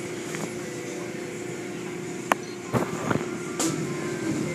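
Automatic car wash running, heard from inside the car: a steady hum and rush of water and foam over the car, with a few sharp knocks and clicks about two to three and a half seconds in.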